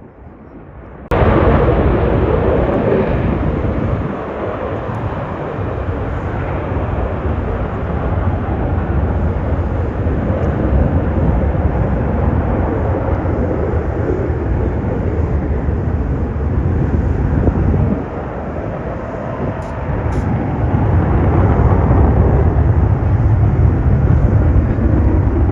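Loud jet noise from the F-35 Lightning II's single F135 turbofan as it flies its display, cutting in abruptly about a second in and then running on as a deep, steady rumble.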